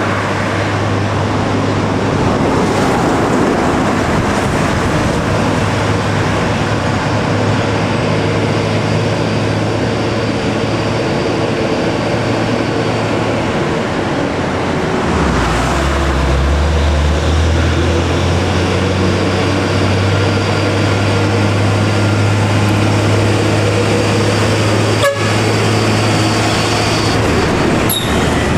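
Heavily loaded diesel trucks labouring up a steep grade, their engines running steadily under load, with a second, deeper engine note coming in about halfway. A vehicle horn toots.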